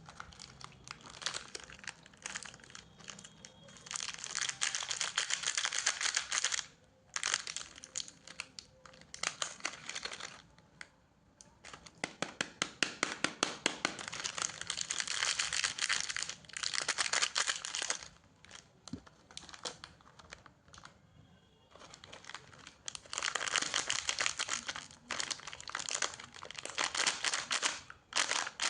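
Plastic biscuit-packet wrapper crinkling and being torn open, in bursts of a few seconds with quieter pauses between.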